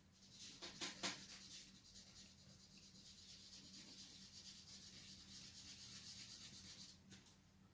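Faint, steady rubbing of a dental cotton roll over oil pastel on paper, blending and softening the colour.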